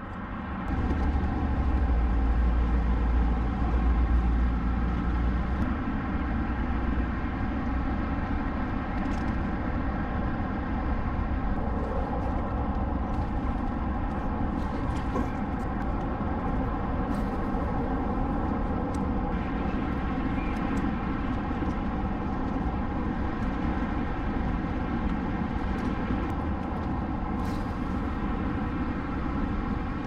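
Steady hum of road traffic, with a heavier low rumble during the first several seconds.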